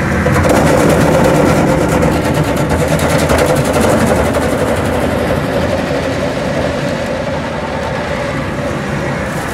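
Ford Ranger's engine held at high revs in a burnout, its rear tyre spinning in smoke. The sound runs loud and steady, easing off a little through the second half.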